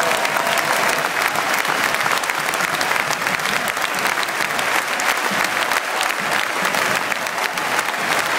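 Large football stadium crowd applauding steadily, with individual claps sharp and close amid the dense clapping.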